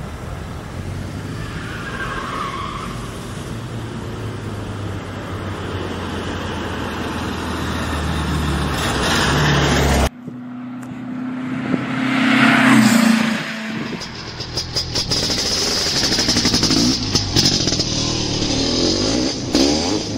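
A motor vehicle's engine running and slowly growing louder, cut off abruptly about halfway through. Then a vehicle sound swells and falls away, with a slightly dropping tone, as it passes.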